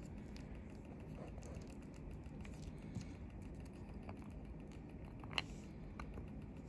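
Faint scattered ticks over low room noise, with one sharper click about five and a half seconds in as a plastic lid is handled over a small glass cup.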